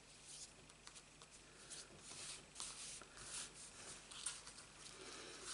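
A string of short, faint rustles and scrapes of card stock being slid and turned on a work mat by hand.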